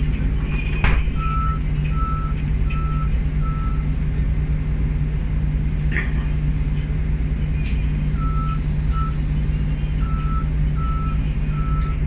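Diesel city bus engine idling steadily, with a vehicle's electronic warning beeper sounding a short high beep a little faster than once a second: four beeps soon after the start, then a pause, then again through the last four seconds. A sharp knock about a second in.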